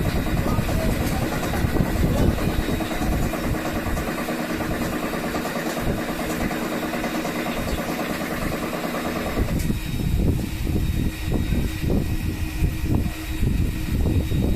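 Loren Sid Tufão 50 cm six-blade wall fan running loudly, its air buffeting the microphone in low rumbles. A little over halfway through, the rushing hiss drops off suddenly, leaving a steady hum and gusty buffeting.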